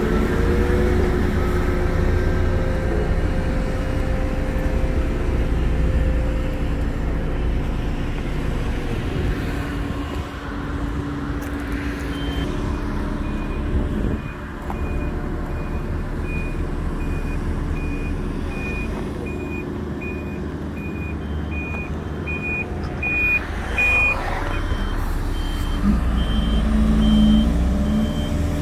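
Heavy truck engines running steadily, with reversing alarms beeping. One alarm starts about halfway through and stops a few seconds before the end. A second, higher-pitched alarm beeps over it from about three-quarters of the way through.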